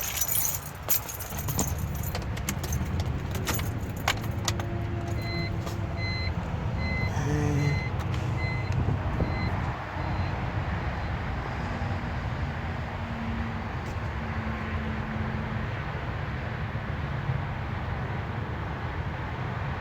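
Car keys jangling and clicking, then the car's electronic warning chime beeping about twice a second for some four seconds, over a steady low rumble.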